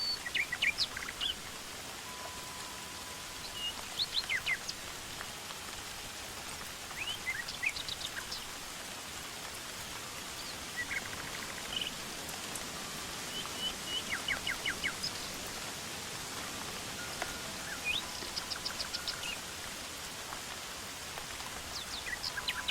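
Songbirds calling in short chirps and trills every few seconds over a steady, even hiss of forest ambience. A faint steady high tone comes and goes underneath.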